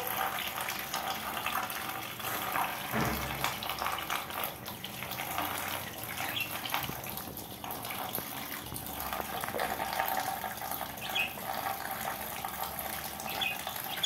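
A thin stream of running water pouring steadily onto a wire birdcage, splashing on the bars and the budgies bathing beneath it.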